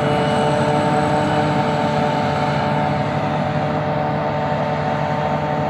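Self-propelled forage harvester and tractor running steadily in the field, a constant mechanical drone with several held tones over a low rumble.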